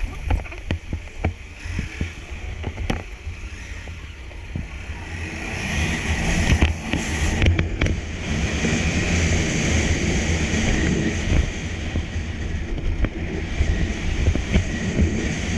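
Honda CG 160 Titan's single-cylinder engine running while riding, with wind rushing over the camera microphone. A few sharp knocks come in the first seconds, and the engine and wind grow louder about six seconds in.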